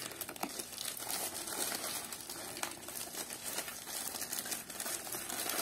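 Packaging crinkling and rustling as a parcel is unwrapped by hand, with many small scattered crackles.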